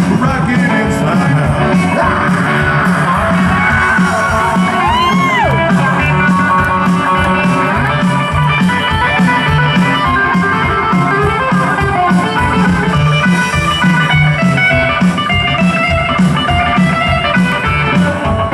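Rockabilly band playing live without vocals: hollow-body electric guitar over slapped upright bass and a steady beat.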